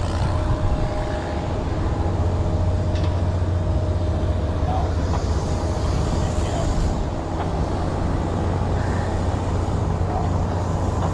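Steady low drone of running heavy machinery, an even hum with a noisy wash over it and no change in level.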